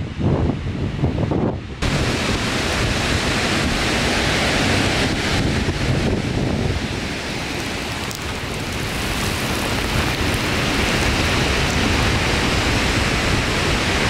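Steady roar of Skógafoss waterfall, coming in abruptly about two seconds in and holding steady, with wind buffeting the microphone. Before it, only the low gusty rumble of wind on the microphone.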